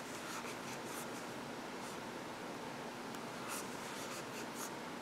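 Soft rustling and scratching of yarn drawn through stitches with a metal crochet hook, a few short scratches heard over faint room hum.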